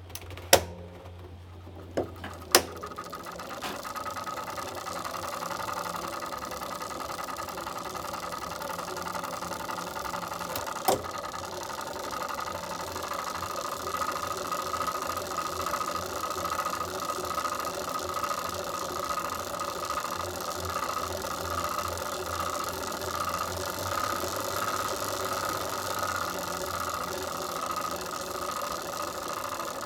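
Tacx Flux direct-drive smart trainer running under pedalling, its whir carrying a steady rattling mechanical noise: a fault that appeared after about 150 km. A few sharp clicks in the first seconds and one more about eleven seconds in.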